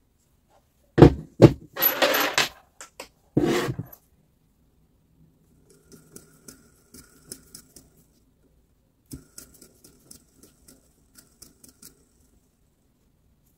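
Workshop handling noises: two loud sharp knocks about a second in, then bursts of scraping clatter, followed by scattered light clicks and small rattles of parts being handled.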